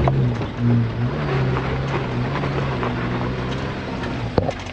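Suzuki Jimny engine running steadily at low revs on a dirt track, with a brief change in pitch about a second in, light rattles, and a sharp knock near the end.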